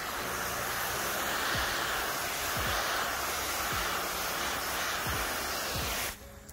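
Garden hose spraying water onto a car's hood, a steady hiss that cuts off suddenly near the end.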